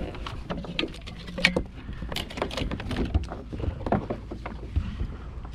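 Irregular knocks, taps and clicks of fishing gear and small bait fish being handled on a plastic kayak, over a steady low rumble of wind and water.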